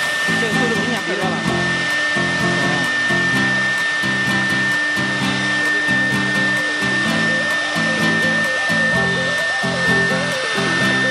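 CNC wood router spindle running with a steady high whine while the bit cuts into a wooden board. Background music with a steady beat plays over it.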